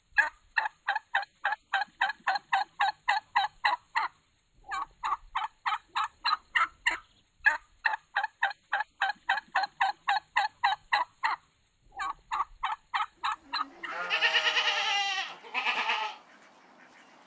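Animal calls: runs of short calls repeated about four times a second, broken by brief pauses, then two longer drawn-out calls near the end.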